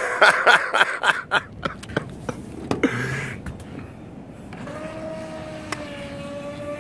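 Feilun FT009 RC speedboat taking off: sharp, irregular splashes as the hull slaps the water for the first three seconds or so, then about four and a half seconds in the steady high whine of its water-cooled electric motor as it speeds away.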